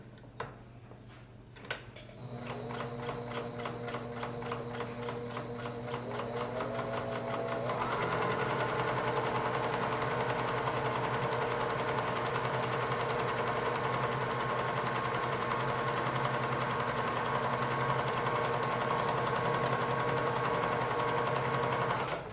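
Riccar 9800 sewing machine running after a couple of clicks. It starts slowly with an even stitching rhythm, speeds up to a higher, steady whine about six to eight seconds in, and runs fast until it stops at the end.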